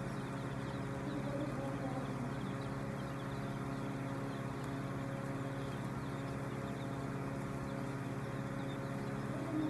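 Steady motor hum with a flock of young chicks peeping faintly.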